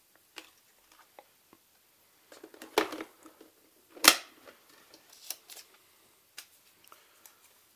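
Scattered clicks and knocks from handling the Xiaomi Mi robot vacuum and its parts, the loudest knock about four seconds in and another near three seconds in.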